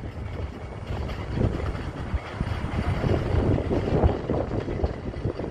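Boeing 737 airliner on approach to land, a low jet rumble with gusty wind buffeting the microphone.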